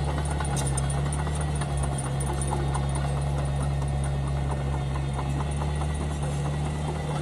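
Mini bulldozer's diesel engine running steadily with a low hum, with scattered light clicks over it.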